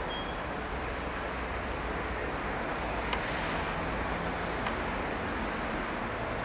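Steady low rumble of trains at a station as a steam-hauled train draws slowly in, with two faint clicks midway.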